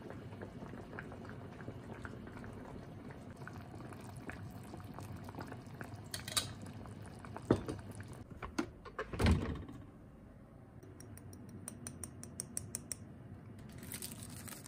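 Vegetable soup boiling in a glass pot on a gas burner, a steady bubbling with small pops. Near the middle come two knocks, the second a heavier clunk. After that it goes quieter, with a quick run of light clicks.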